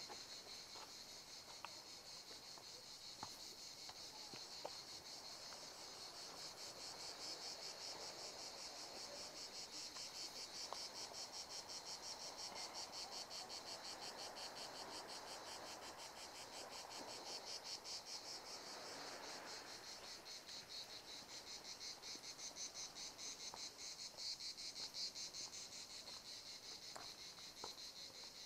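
A steady chorus of insects chirring in rapid pulses, high in pitch, with a few faint footsteps on a stony forest path.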